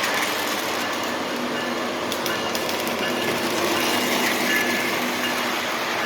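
O gauge model train running along the track: a steady mix of motor whine and wheels rolling on the rails.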